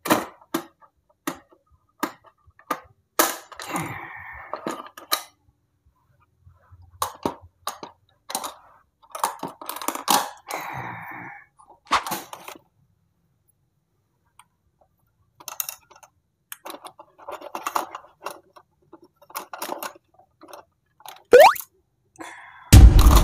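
Plastic clicks and clacks from fingers pressing the teeth of toy biting-animal dentist games and the jaws snapping shut, many separate sharp clicks with some rustling of handling. Near the end comes a quick rising squeak, then a loud steady sound starts.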